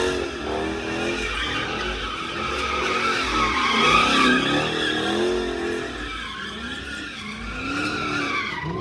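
Car tires squealing in long skids, the pitch wavering up and down, over a low engine rumble.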